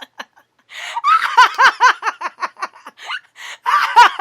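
Women laughing in quick, pulsing giggles that start about a second in, ease off, and burst out again near the end.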